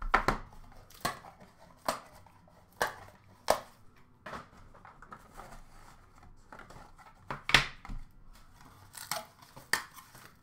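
Hands opening a cardboard box of hockey cards: the lid pulled off, then an irregular series of short rustles, scrapes and light knocks as the cards are taken out and set down on a glass counter.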